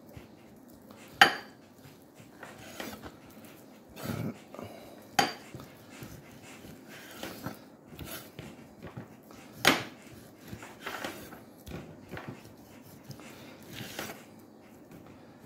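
A chef's knife slicing raw chicken breast on a wooden cutting board: soft slicing with a few sharp knocks as the blade strikes the board.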